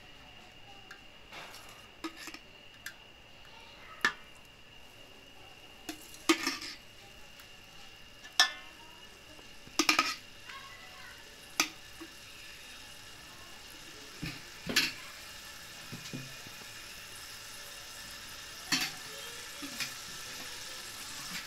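A metal spoon clinks and scrapes against a steel pot in a dozen scattered sharp knocks as a wet paste goes into hot ghee. A faint sizzle grows slowly louder underneath.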